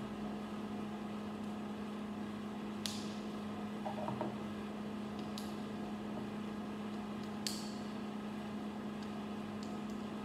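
Small plastic building bricks clicking as they are pressed together by hand: three sharp clicks a couple of seconds apart. Under them runs a steady low electrical hum.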